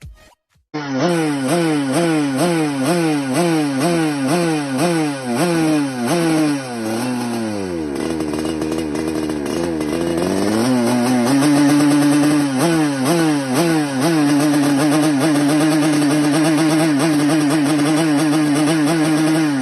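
Yamaha RX-King two-stroke motorcycle engine being revved by quick throttle blips, about one or two a second, in an engine check. About halfway it drops to idle, is blipped again, then is held at a steady raised speed for the last few seconds.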